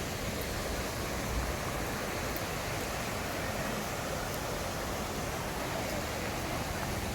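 Steady rushing of a waterfall and its stream of running water.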